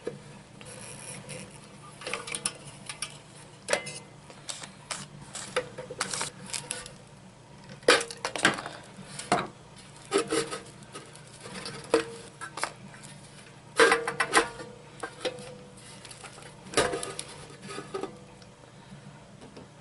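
Metal parts of a rock tumbler clinking and clattering as it is taken apart by hand, in irregular knocks and rattles every second or so, over a faint steady low hum.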